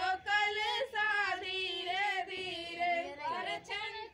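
Women singing a traditional wedding folk song, unaccompanied, with long held, wavering notes.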